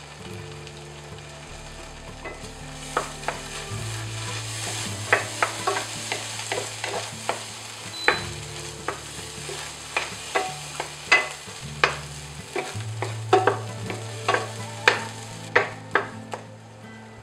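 Salted egg yolk paste sizzling in a nonstick frying pan as a wooden spatula stirs and presses it, the spatula knocking and scraping against the pan in sharp, irregular clicks that come thick and fast from about three seconds in.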